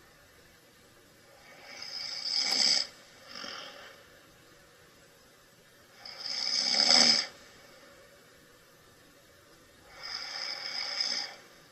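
A sleeping man snoring: three snores about four seconds apart, each about a second long, with the middle one loudest. A short, softer breath follows the first.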